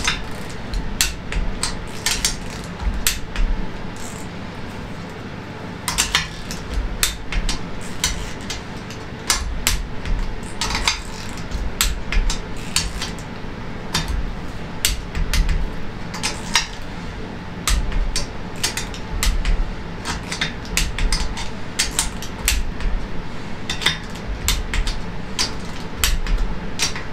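Socket wrench working the nuts on a Fiat 500 engine's cylinder head: irregular metallic clicks and clinks of the ratchet and socket, with low knocks as the parts are handled.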